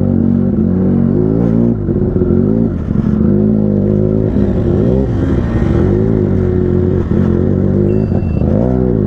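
Benelli 300 motorcycle's parallel-twin engine being ridden off-road, its revs climbing and dropping over and over as the throttle is worked.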